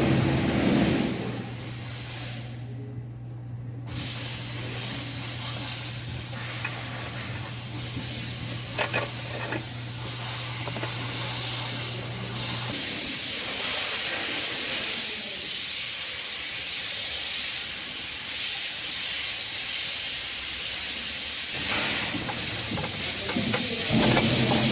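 A steady hiss with a low, even hum under it; the hum stops about halfway through, and the hiss goes on a little stronger.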